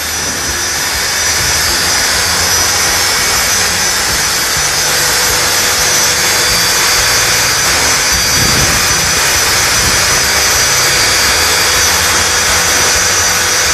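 Milling machine running steadily, a constant high whine over an even hiss.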